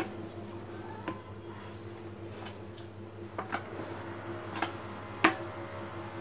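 A few light knocks and taps as hands work a lump of soft dough on a wooden cutting board, pinching off small pieces, over a steady low hum. The taps are irregular, about six of them, the sharpest a little after five seconds in.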